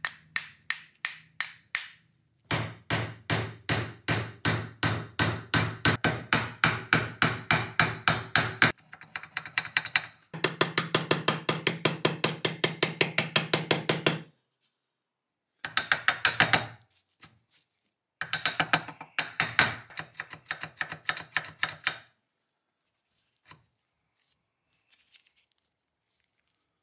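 A brass-faced hammer tapping on the rust-seized steel of a Colt 1908 Vest Pocket pistol to free its seized parts. The strikes come in several runs of quick, even taps, about four a second at first and faster near the middle, and stop a little over 20 seconds in.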